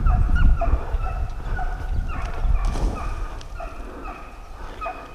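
Hunting hounds baying in short, repeated calls, about two to three a second, as the pack runs a deer. A low rumble of movement on a head-mounted camera's microphone lies under them, heaviest in the first three seconds.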